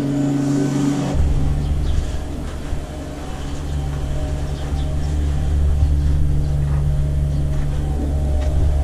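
Engine of construction machinery running steadily, a continuous low hum that grows heavier about a second in, with faint footsteps over it.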